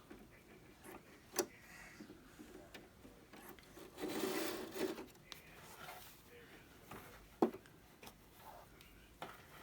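Faint rubbing and rustling with a few light clicks, from hands handling the hair weft and wig cap at the sewing machine. The loudest rustle comes around the middle, and a sharp tick sounds near the end.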